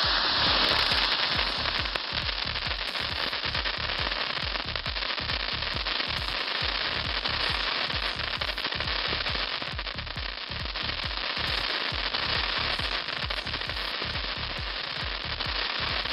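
Crackling cone fountain firework burning: a steady spark hiss with dense crackling pops from the bursting stars. Background music with a steady thumping beat, about three beats a second, plays under it.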